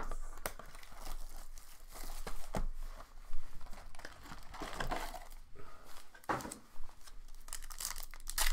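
Plastic wrapping on Panini Contenders football card packs being torn and crinkled by hand, in scattered rustles with a sharp snap just over three seconds in.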